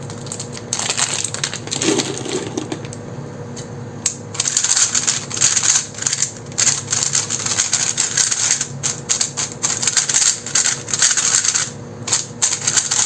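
Plastic speed cube being turned quickly in the hand: a dense, rapid clatter of clicking layer turns with a short pause a few seconds in.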